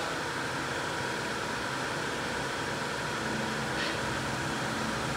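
A steady mechanical hum with an even hiss of noise and no distinct events, like a fan or engine running.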